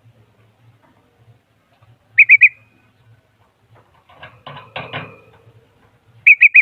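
A songbird gives a loud call of three quick, high whistled notes twice: about two seconds in and again near the end. Between them comes a softer, scratchy chatter.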